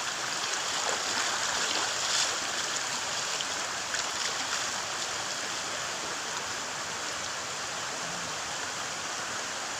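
Steady rushing of flowing river water, an even noise with a couple of faint ticks.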